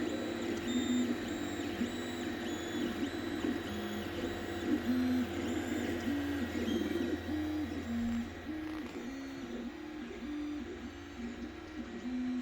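Anycubic Chiron 3D printer's stepper motors whining as the print head moves, the pitch stepping up and down every fraction of a second as it changes direction, printing a part in spiral (vase) mode. A steady low hum underneath drops away about eight seconds in.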